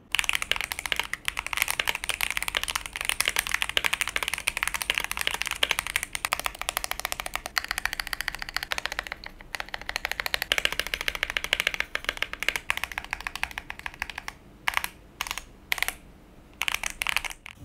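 Typing sound test on a Tofu60 v1 60% mechanical keyboard with WS Brown tactile switches, an aluminium plate in a tray mount, tape mod, case foam and ePBT PBT keycaps. There is fast continuous typing with a short break about nine seconds in, then a few separate key strokes spaced out near the end.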